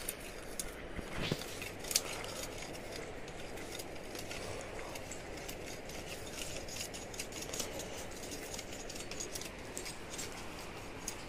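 Sugarcane being peeled: scattered small cracks and snapping ticks as the rind is stripped, sharpest in the first two seconds, over a steady background hiss.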